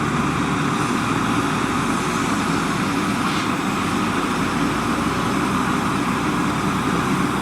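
Vehicle engine running steadily, with no change in pitch or level, like a truck's engine.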